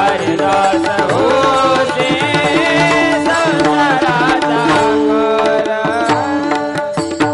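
Marathi devotional kirtan singing: a man's voice draws out long, bending melodic lines over a steady sustained note, with hand-drum strokes keeping the beat.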